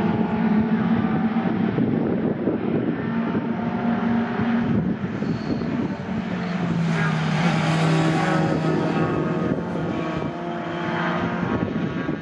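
Racing pickup truck engines running hard on a circuit, several trucks passing in turn with their engine notes shifting in pitch. The loudest, nearest pass comes about seven to eight seconds in.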